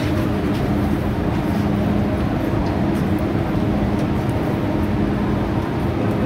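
Steady hum and hiss of an MTR Kwun Tong line M-Train standing at a station platform with its doors open.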